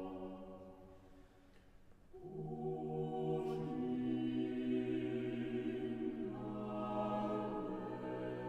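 Small mixed vocal ensemble singing a cappella in sustained chords. A held chord fades away in the first second or so; after a short hush the voices come in again about two seconds in and hold chords that change at about four and six seconds.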